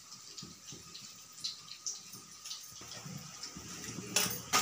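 Bottle-gourd and besan fritters (lauki bhajiya) deep-frying in hot oil in a kadai: a steady sizzle with many small crackles, and a louder burst of sizzling about four seconds in.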